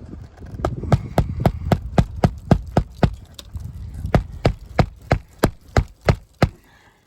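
Hammer striking in quick, even blows, about three to four a second, the last few blows spaced a little wider.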